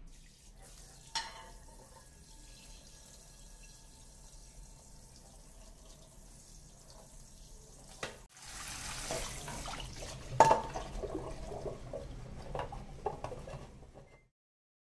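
A single knock of cookware in a stainless-steel sink about a second in, then, from about midway, a kitchen tap running water over a non-stick pan, with a loud clank of cookware against the sink and a few lighter knocks as the pan is rinsed and wiped.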